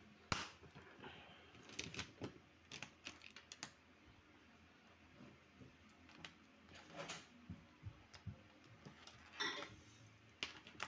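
Scattered light clicks and taps of small objects being handled, in irregular clusters.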